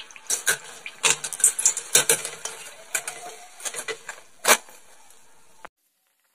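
Metal wire-mesh skimmer clinking and scraping against an aluminium kadai while fried somas are scooped out of hot oil, over a light hiss of frying oil. The sound cuts off suddenly near the end.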